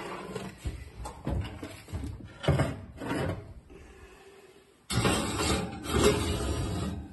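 Oven door and wire rack being handled as a ceramic baking dish is set into the oven: a series of knocks and scrapes, then a louder stretch of scraping that starts suddenly about five seconds in as the dish goes onto the metal rack.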